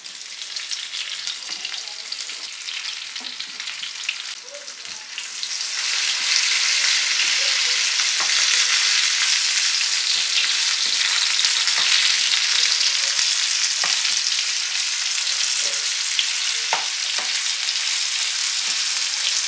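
Pitted dates sizzling in hot oil with cumin seeds and dried red chillies in a frying pan, stirred with a wooden spatula. The sizzle grows louder about five seconds in, with occasional short clicks from the stirring.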